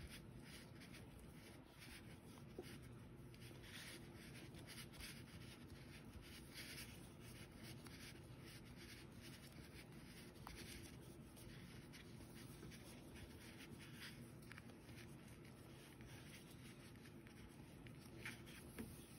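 Faint, irregular rustling and rubbing of yarn being wound around a fuzzy chenille pipe cleaner by hand, over near-silent room tone.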